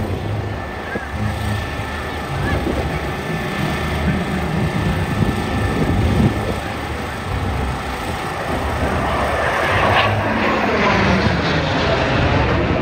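Aircraft flying past, a steady engine noise that swells with sweeping changes in tone over the last few seconds as it passes.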